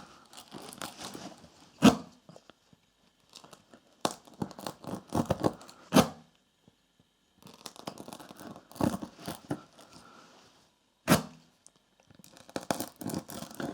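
Spiral reamer from a tyre plug kit being forced in and out of a nail puncture in a van tyre's rubber tread, rasping and scraping in spells as it sizes and smooths the hole for the plug. Three sharp knocks stand out, about four to five seconds apart.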